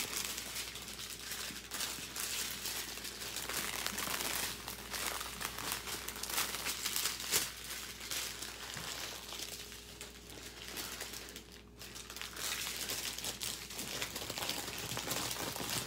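Small plastic bags of diamond painting drills crinkling and rustling as they are handled and gathered up, with a short lull near the end.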